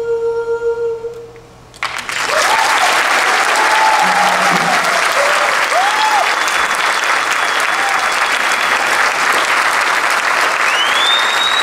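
The last held note of the song fades out. About two seconds in, an audience starts applauding loudly and keeps it up, with cheering voices and a rising-and-falling whistle near the end.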